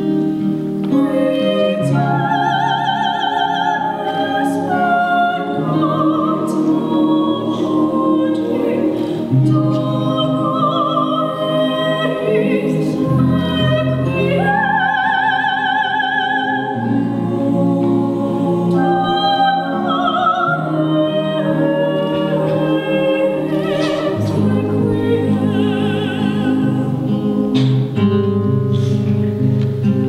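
A young female soloist singing in a classical style with strong vibrato, holding long notes, over a lower, quieter accompaniment.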